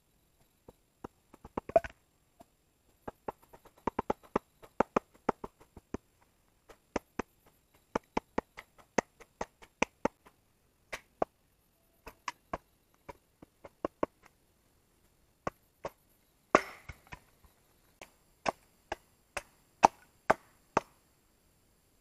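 Hatchet chopping and hewing wood held on a log: a long series of sharp, irregular blows, sometimes two or three a second, with one louder, longer crack about three quarters through.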